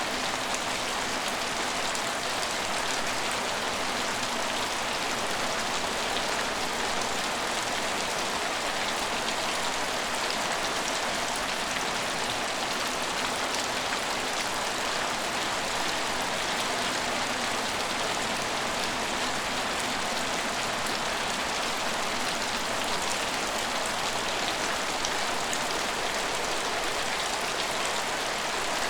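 Steady rain falling: an even hiss of countless drops with fine individual patters, holding the same strength throughout.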